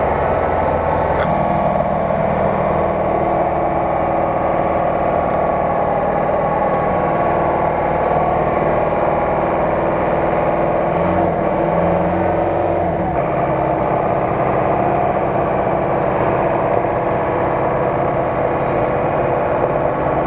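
Off-road vehicle engine running steadily through a muddy tow-out of a stuck GAZ-66 truck, its pitch shifting about a second in and again about halfway through.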